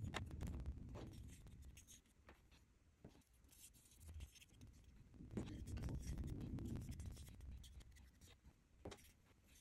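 Paintbrush stirring and scraping acrylic paint around a small metal tin lid: faint quick scratches and taps of the brush against the metal, with low handling rumble that swells about halfway through.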